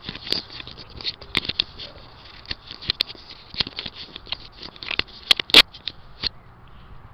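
Handling noise on the camera's own microphone as its chest mount is unfastened: an uneven run of clicks, taps and rubbing, loudest about five and a half seconds in.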